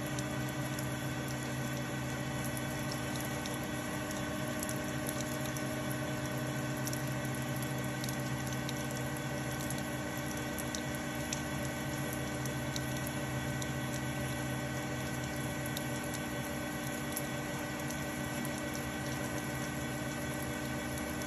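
Metal lathe running steadily while a diamond burnishing tool rides along a turning steel bar with coolant streaming onto it: a constant machine hum with several steady tones, and the coolant splashing and pattering over it.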